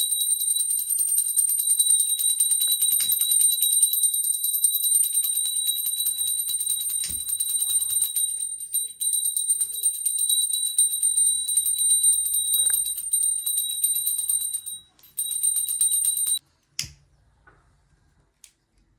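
Brass puja hand bell (ghanti) rung fast and without pause: a steady, high ringing made of rapid clapper strikes. It breaks off briefly, rings again for about a second and a half, then stops suddenly.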